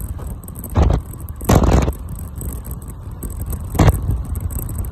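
Steady road and tyre noise from a car driving at motorway speed, heard from inside the cabin, broken by three short whooshing bursts: one about a second in, one shortly after, and one near the end.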